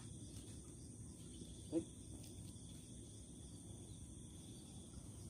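Quiet outdoor ambience: a steady low background noise under a continuous high, thin insect drone, with one short pitched sound a little under two seconds in.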